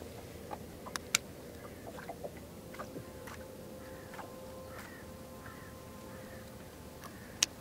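A few sharp clicks and knocks from handling a baitcasting rod and reel, two about a second in and a loud one near the end, over a steady background with faint bird calls and a faint steady hum in the middle.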